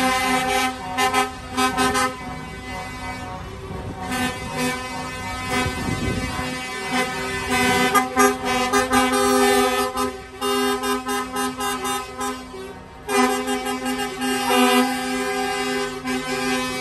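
Lorry air horns sounding at a steady pitch almost without pause, broken by short gaps, as lit-up Scania G540 tractor units drive past. A low rumble swells briefly about six seconds in.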